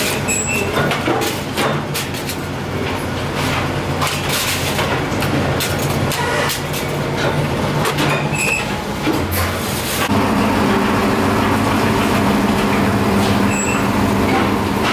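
Motor-driven rotary roller machine running while sheet steel for a motorcycle fuel tank is fed through its rollers, with a steady motor hum and many clicks and clatters of the metal. About ten seconds in, the sound changes to a steadier machine hum.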